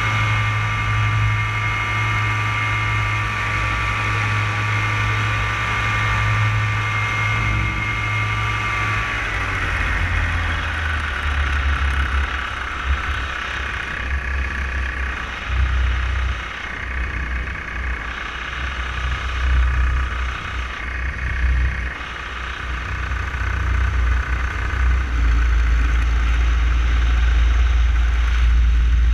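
Paramotor engine and propeller running behind the pilot in flight, holding a steady pitch, then easing back so the pitch slides down about nine seconds in. An uneven low rumble that swells and drops follows.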